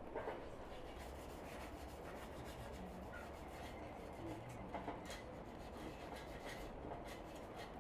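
Faint rubbing strokes of a paintbrush spreading white paint over a tubular metal chair frame.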